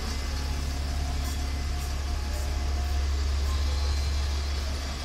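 Low rumble of a motor vehicle's engine in city street traffic, swelling a little about three seconds in and easing off at the very end, over general street noise with faint regular ticks about twice a second.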